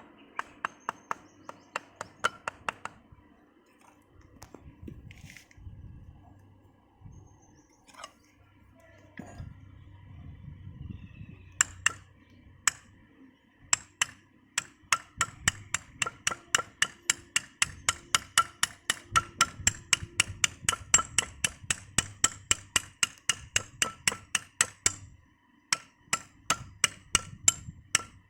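Hammer striking metal in quick repeated blows, each with a short metallic ring. A run of about ten blows at the start gives way to a few scattered knocks, then steady hammering at about three blows a second from about twelve seconds in, with a short pause near the end before it resumes.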